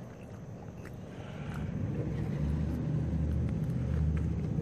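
A passing motor vehicle's engine: a low rumble that swells from about a second in and is loudest near the end.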